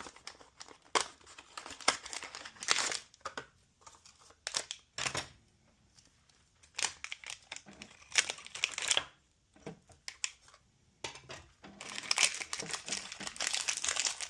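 Irregular crinkling and rustling handling noises with scattered clicks, in a small room, with a longer run of rustling near the end.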